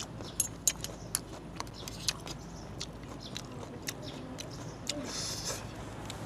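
Close-up eating sounds from a bowl of kuay jab noodle soup: scattered sharp mouth clicks and smacks, with a short slurp about five seconds in, over a faint low hum.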